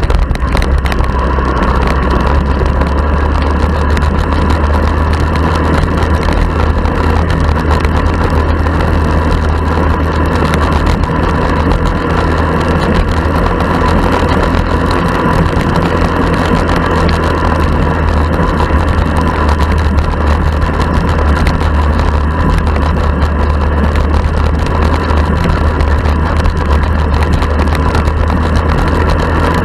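Honda ATC 70 three-wheeler's small single-cylinder four-stroke engine running steadily while being ridden.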